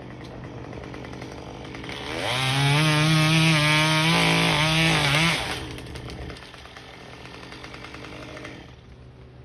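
Two-stroke chainsaw running at low revs, then throttled up to a high, steady scream about two seconds in. It holds there for about three seconds and drops back to a low run.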